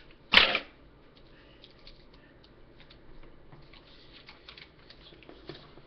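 Hands handling a homemade cardboard panel while refixing a part held by a push pin: one brief loud knock about half a second in, then faint scattered taps and clicks.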